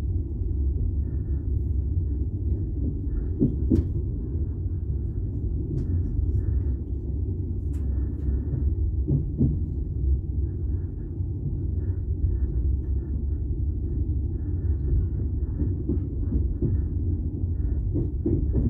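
Steady low rumble of a passenger train coach running along the track, heard from on board, with a few sharp clicks and knocks.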